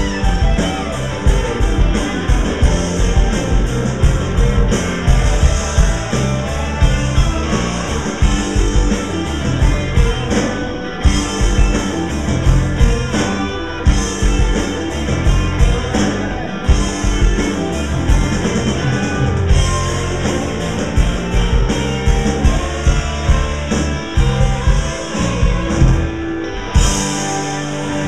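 Rock band playing live and loud: drum kit, electric guitar, bass and mandolin, with steady drum hits and the cymbals dropping out briefly a few times.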